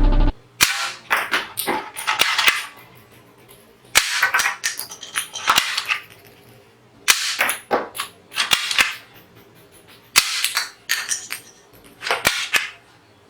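Toy gun firing in four rapid bursts of sharp, clicking shots, each burst lasting about two seconds, with short pauses between them.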